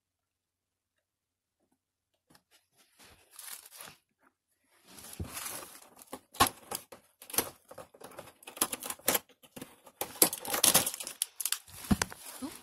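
A cardboard advent calendar door being pried and torn open along its perforations: scattered clicks after a quiet start, then from about five seconds in a run of crackling, tearing cardboard with sharp snaps.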